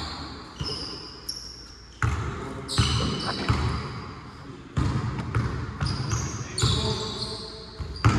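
Basketball bouncing on a court during play, a sharp thud about every second or so, mixed with short high-pitched squeaks of sneakers on the floor.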